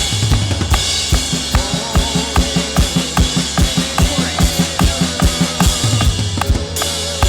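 Drum kit playing a steady beat with kick and snare, about three to four hits a second, over band music with sustained bass and held chords.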